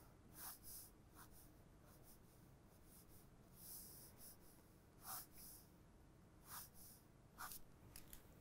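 Faint scratching of a pen flicked across sketchbook paper in short, quick outward strokes, coming at irregular intervals with brief pauses between.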